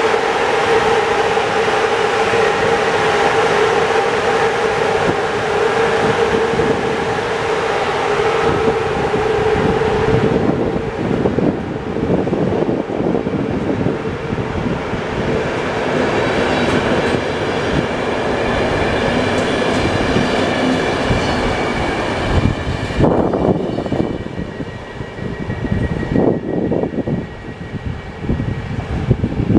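CFR class 41 electric locomotive pulling a passenger train out, passing with a steady hum for the first ten seconds or so. Then the coaches roll by, their wheels clicking over the rail joints, and the sound drops off near the end as the train moves away.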